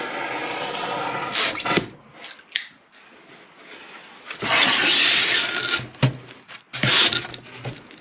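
Foam board being cut: a steady noise with a hum stops about two seconds in, then two loud scraping strokes follow, the first about a second and a half long.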